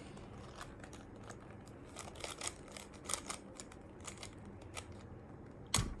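A Rubik's Cube being twisted by hand, its plastic layers turning with irregular small clicks and scrapes, and one sharper click near the end.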